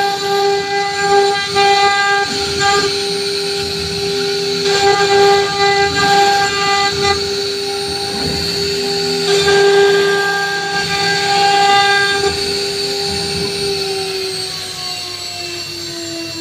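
CNC router spindle whining at a steady high pitch while its bit engraves grooves into a board, with rough cutting noise that swells and fades as the bit moves. About fourteen seconds in, the whine starts falling in pitch as the spindle slows down.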